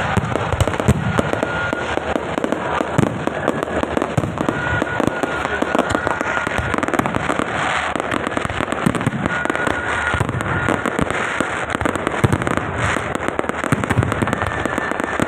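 Fireworks and firecrackers going off continuously: a dense, unbroken run of crackling and sharp pops.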